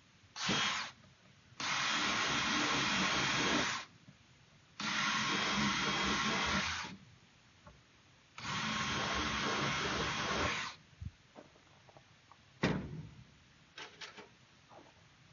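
Power drill boring out a bolt hole in a plastic paint bucket with a bigger bit: a short burst, then three runs of about two seconds each, with a few clicks and knocks near the end.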